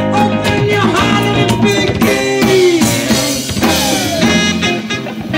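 Live band playing a groove: drum kit and djembe keep a steady beat under electric guitar, with cymbals washing about halfway through and pitched notes bending up and down.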